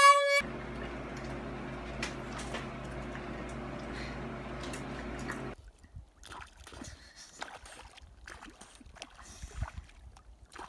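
A wet puppy's loud whine cuts off about half a second in. A steady low hum with hiss follows for about five seconds, then stops, leaving faint splashing and lapping water as a dog swims.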